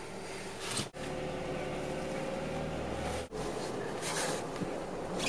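A car running, heard from inside the cabin: a steady low engine hum with road noise, and a faint tone rising slowly in the middle. The sound breaks off abruptly twice, about a second in and about three seconds in.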